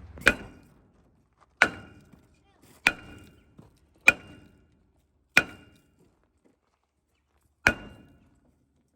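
A big hammer striking a seized steel part on an old truck: six heavy blows, about one every second and a bit with a longer pause before the last, each ringing briefly.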